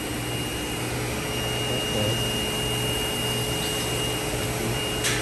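Car wash equipment running steadily in the wash bay: a constant rushing machine noise with a thin steady whine and a low hum. A short knock about five seconds in.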